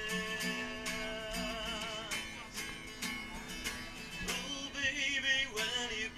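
Acoustic guitar strummed in a steady rhythm while a man sings, holding a wavering note about five seconds in.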